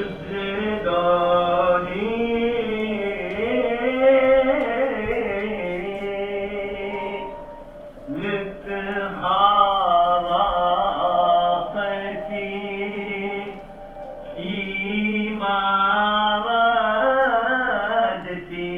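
Live band music: wavering, chant-like wordless melodic lines over a sustained low drone, swelling and easing in phrases.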